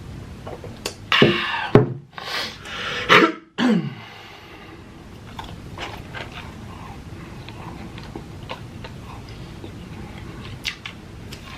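A man clearing his throat in several loud, rough bursts over the first few seconds, the last one falling in pitch, then small wet mouth clicks of chewing.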